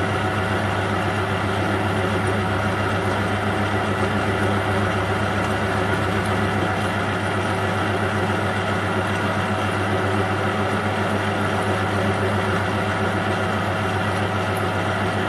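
Metal lathe running steadily with a low hum, while a drill bit turning in the chuck cuts into a metal job held in the tool post.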